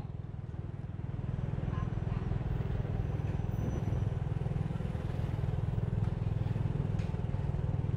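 Motorbike engine running steadily as it is ridden, a low, even rumble.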